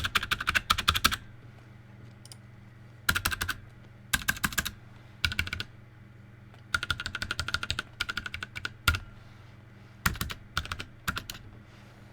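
Typing on a mechanical keyboard with Cherry MX Red linear switches in a 3D-printed case: quick runs of key clicks in bursts of about half a second to two seconds, with short pauses between them.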